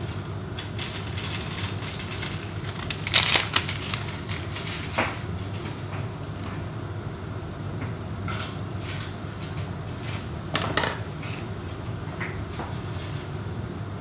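Plastic being handled in a kitchen: scattered rustles and clicks, the loudest burst about three seconds in, over a steady low hum.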